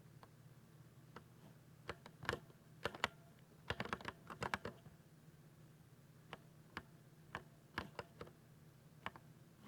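Keys of a 60% keyboard being typed on in irregular keystrokes: a quick flurry of several strokes about three to four and a half seconds in, then single taps spaced out through the rest.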